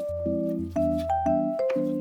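Background music: a light instrumental tune with a stepping melody over short chords repeated about twice a second and a bass line.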